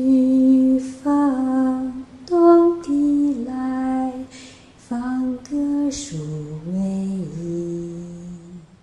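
A woman singing a slow, gentle melody, a sung line of a Chinese setting of the poem, with notes held and stepping between pitches; the phrase ends on a lower held note that fades out near the end.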